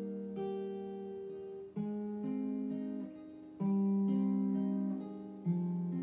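Solo acoustic guitar playing picked chords that ring out, a new chord struck about every one to two seconds, with no singing.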